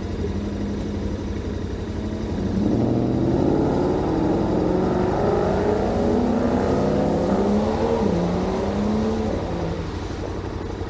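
Motorcycle engine running steadily, then accelerating for several seconds with its pitch climbing and dropping back at each gear change, and easing off near the end.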